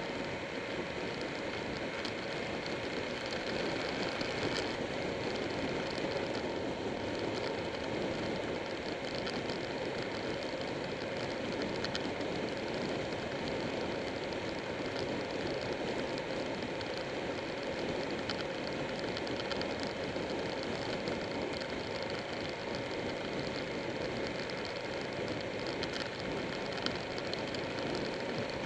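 Buell 1125R V-twin motorcycle cruising at a steady speed, its engine hum mixed with constant wind rush and tyre noise, heard from a camera mounted on the bike.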